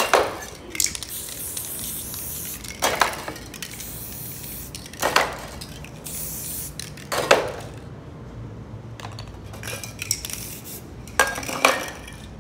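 Aerosol spray paint can hissing in sprays for the first seven seconds or so, then stopping. Sharp clatters come every couple of seconds and twice more near the end.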